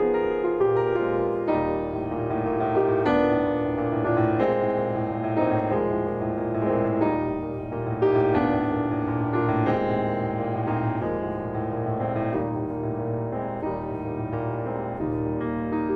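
Kawai grand piano played solo in a classical piece: a steady, continuous flow of notes, with a louder chord struck about halfway through.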